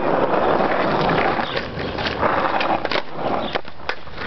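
Skateboard wheels rolling on rough asphalt, a steady gritty rumble, with a few sharp clicks in the second half.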